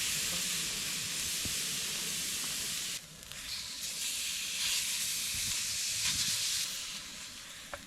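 Marinated steak sizzling in a hot pan, starting suddenly as it goes in. The sizzle drops off about three seconds in, rises again half a second later, and dies down near the end.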